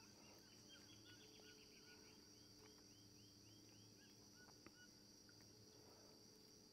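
Near silence with faint natural ambience: a steady high insect drone and a bird calling a quick run of short repeated notes through the first few seconds, with one small click a little past the middle.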